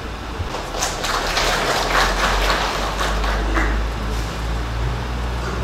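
Audience applauding. The clapping swells about a second in and dies away over the next few seconds.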